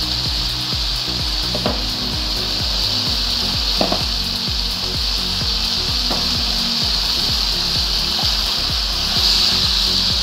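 Diced chicken thigh and sliced onion sizzling steadily in a nonstick wok as the chicken sears until it changes colour, with a few faint knocks.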